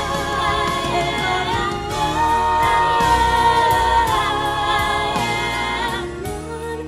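One woman's voice multitracked into five-part harmony, singing held chords that move from note to note, thinning out and getting quieter near the end.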